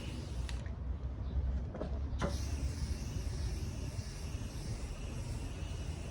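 Aerosol can of automotive primer spraying: a hiss that stops about half a second in, a couple of clicks, then a second long spray from about two seconds in. A low rumble runs underneath.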